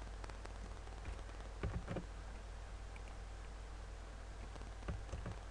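A few short clicks from a computer keyboard and mouse, a small cluster about two seconds in and another near the end, over a steady low hum.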